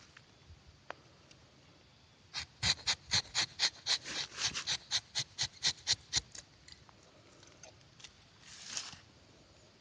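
Rubber-tapping knife shaving bark along a rubber tree's tapping cut in a quick run of short scraping strokes, about four a second. One longer, softer scrape follows near the end.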